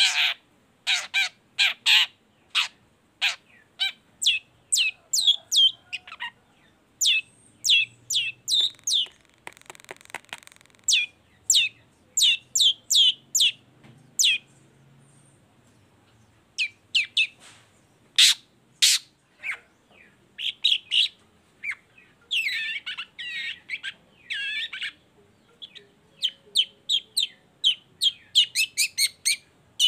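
Long-tailed shrike calling in a vigorous run of short, sharp, downward-slurred notes, two or three a second. It breaks off twice for a few seconds, gives a longer scratchy, jumbled phrase about two-thirds of the way in, and ends with a quicker run of notes.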